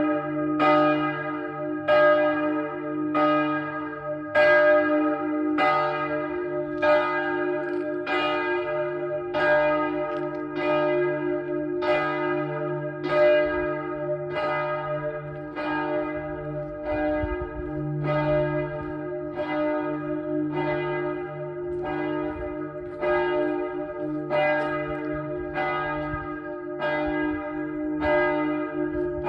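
The Notre Dame de la Paix church bells ringing: an even, unbroken run of strikes, about three every two seconds. Each stroke's ringing overlaps the next over a sustained low hum.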